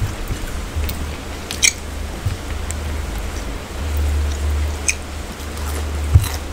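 Eating by hand: fingers mixing rice and curry on steel plates, and chewing, heard as scattered small wet clicks over a steady low rumble, with a soft knock near the end.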